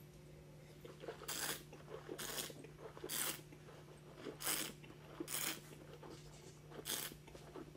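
A wine taster slurping a mouthful of white wine, drawing air through it with his lips in about six short, hissing slurps roughly a second apart, to aerate the wine.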